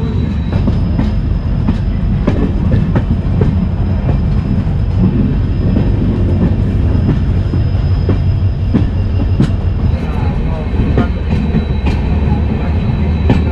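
Jan Shatabdi Express passenger train running, heard from an open coach door: a steady low rumble of wheels on the track with irregular sharp clicks from the wheels over the rails.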